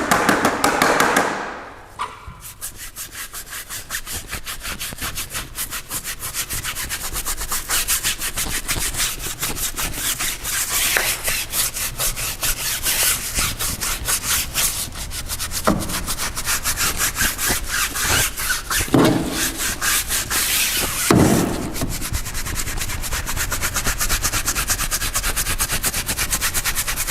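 Stiff-bristled tire brush scrubbing a cleaner-soaked whitewall tire sidewall in rapid back-and-forth strokes, louder for about the first two seconds.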